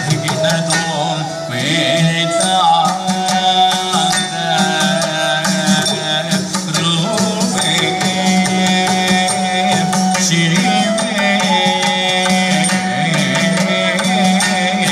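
South Indian classical music accompanying a Mohiniyattam dance: a melody over a steady drone, with rhythmic drum strokes.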